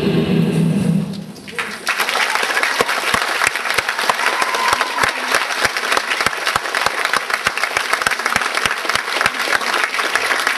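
The dance music ends in the first second or two, and then an audience applauds: dense, steady clapping that carries on as the dancer leaves the stage.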